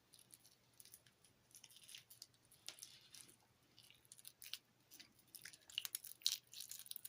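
Soap-soaked toilet paper 'slime' squished and pulled apart by hand close to the microphone: faint, wet crackling and clicking, sparse at first and growing denser and louder near the end.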